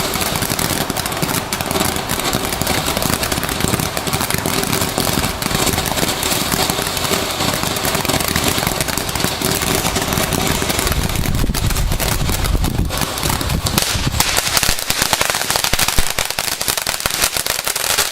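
Crackling firework fountain ("Mr. Crackle") going off, a dense rapid stream of small pops and crackles that keeps up throughout and thins out near the end.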